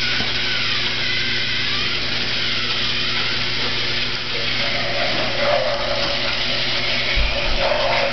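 Small electric motors of toy vehicles on a plastic track layout whirring steadily over a constant low hum.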